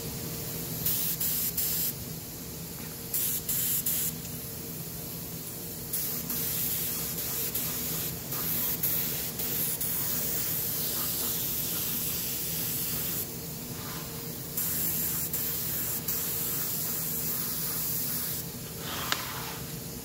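Compressed-air touch-up spray gun spraying refinish coats onto a repaired alloy wheel rim, in hissing bursts that start and stop: two short ones in the first few seconds, then longer passes of several seconds each. A steady low hum runs underneath.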